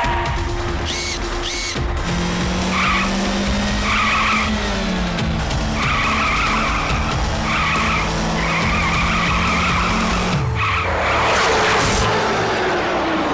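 Cartoon sound effects of a sports car: engine running with its pitch shifting, and tyres skidding, mixed with background music. A louder rush of skidding noise comes in near the end as the car tips up onto two wheels.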